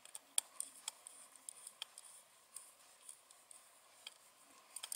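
Small Phillips screwdriver tightening the screw of a screw-terminal block on an L298 motor controller board, clamping motor wires: faint, irregular clicks of the driver tip in the screw head, a few louder ones near the end.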